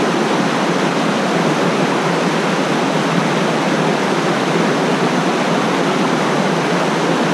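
Mountain stream tumbling over rocks and a small cascade close by: a loud, steady rush of white water.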